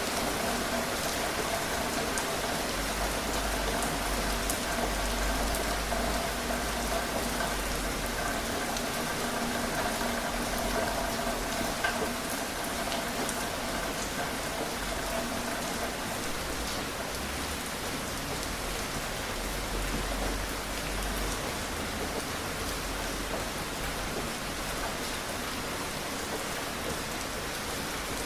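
Steady rain falling, a continuous hiss with fine drops ticking through it. A faint steady hum sits under the rain for the first half and then fades away.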